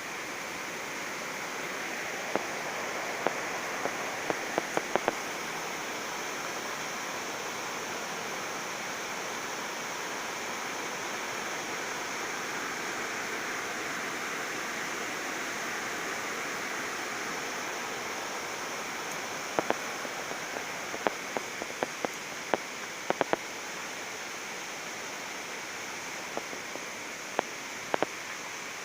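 Waterfall rushing in a steady, even roar of falling water, with scattered sharp clicks a few seconds in and again in clusters through the second half.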